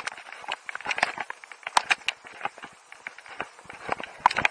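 Skis moving over snow, heard as irregular crackling clicks and crunches.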